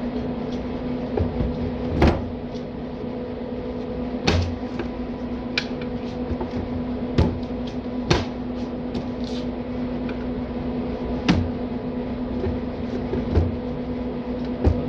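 A steady low hum, with about eight irregular sharp clicks and knocks from hand tools and handling as workers prepare a high-voltage XLPE cable for jointing.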